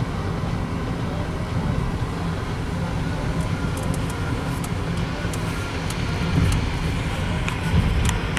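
Cabin noise of a 1997 BMW 740iL with its 4.4-litre M62 V8 under way: a steady low rumble of engine and road noise. From about three seconds in, a few light, sharp ticks sound over it.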